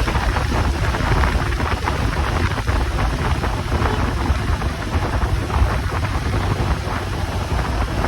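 Steady, loud rushing and buffeting noise with a heavy low rumble, typical of wind blowing across the microphone.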